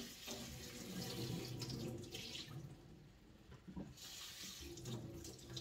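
Tap water running into a sink. The stream thins out about two and a half seconds in and runs full again about four seconds in.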